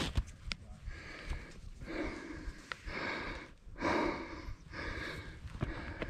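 A man breathing hard at rest close to the microphone, about one heavy breath a second: catching his breath after exertion on a hike.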